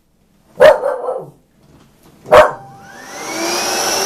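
A dog barks twice, then a Hoover cordless stick vacuum's motor starts up about two and a half seconds in, its whine rising in pitch and settling into a steady run.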